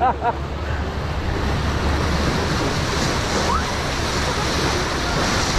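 Rushing whitewater of a river-rapids ride channel churning around a raft, a steady rush of water heard from aboard, close to a GoPro's microphone.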